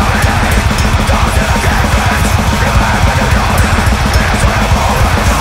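Grindcore recording: fast, dense drumming under heavily distorted electric guitars, loud and continuous.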